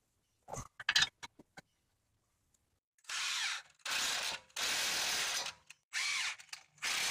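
A few light metallic clanks as the caliper bracket is set in place, then a cordless impact wrench run in five short bursts, driving in the caliper bracket bolts.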